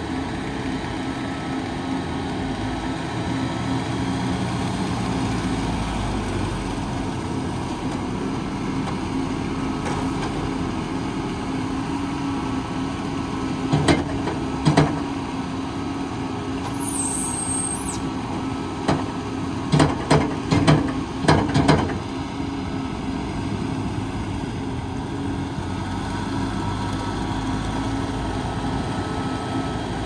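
Diesel engines of a wheel loader and a tractor running steadily with a constant hum. Several short sharp knocks come about halfway through as the loader's silage grab works at the feed mixer wagon.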